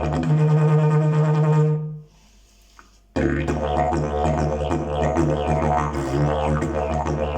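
Fiberglass slide didgeridoo droning, with a brighter held tone over the drone at first. It stops for about a second, two seconds in, then the drone comes back with a pulsing rhythm.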